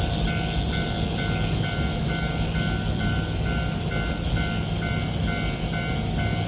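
Japanese level-crossing alarm ringing, a repeating electronic bell about twice a second, over a steady low hum.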